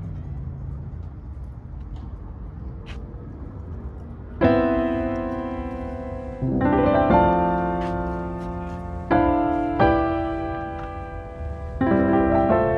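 Background piano music: slow chords, each struck and left to ring out, beginning about four seconds in. Before the first chord there is only low background noise.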